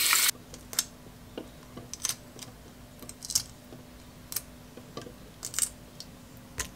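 Hard-boiled eggshells cracking and being peeled by hand, a dozen or so short, sharp, irregular clicks and crackles. Running tap water cuts off just after the start.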